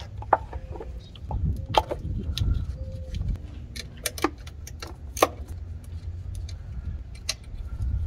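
Irregular metallic clicks and clinks of a wrench working the 12 mm nut off the alternator's cable terminal, some with a brief ring, over a low rumble.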